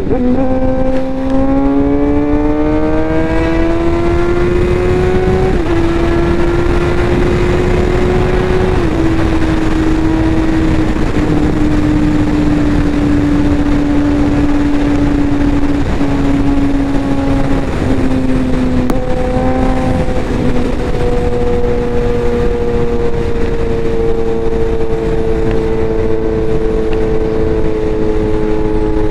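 Suzuki GSX-R 750 inline-four engine pulling through the gears: revs rise, drop with an upshift about five and a half seconds in and again near nine seconds, then hold nearly steady while cruising. Heavy wind rush on the microphone runs under it.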